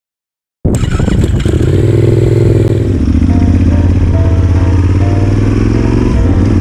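Yamaha XT1200Z Super Ténéré's parallel-twin engine running as the bike is ridden. It cuts in suddenly about half a second in and then holds a steady, loud note.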